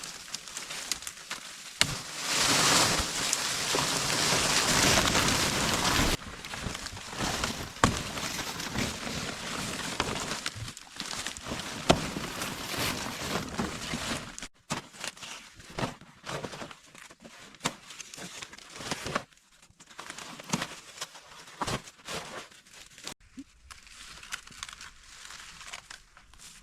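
Rustling and crackling of grass and bamboo being handled, loudest and most continuous for the first six seconds or so, then broken up by scattered snaps and knocks that thin out toward the end.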